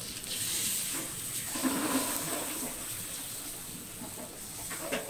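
Takoyaki batter pouring from a metal funnel dispenser into a hot takoyaki pan, hissing and sizzling as it hits the hot metal. The sound is louder for a stretch about a second and a half in.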